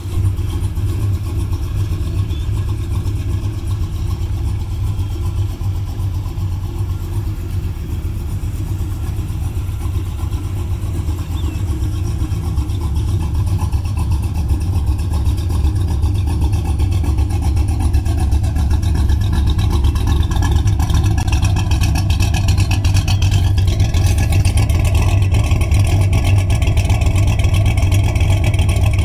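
The freshly rebuilt engine of a 1984 Chevrolet Camaro idling steadily with a low exhaust rumble. The sound grows gradually louder and fuller through the second half, as the dual exhaust outlets come closer.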